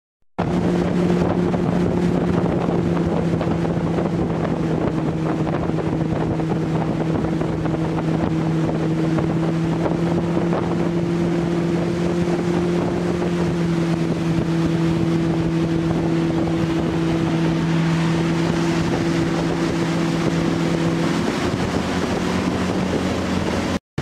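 Motorboat engine running steadily at speed, with wind buffeting the microphone and water rushing past the hull. About 21 seconds in, the engine note drops lower.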